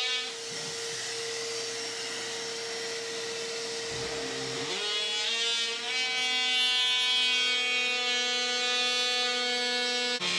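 DeWalt cordless power tool cutting an opening in drywall, running with a steady high whine. About halfway through the pitch dips briefly and a lower second tone joins.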